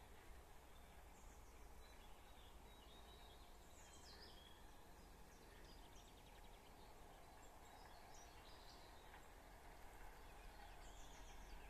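Faint outdoor ambience: small birds chirping now and then, with a short rapid trill around the middle and another burst of chirps near the end, over a steady low rumble.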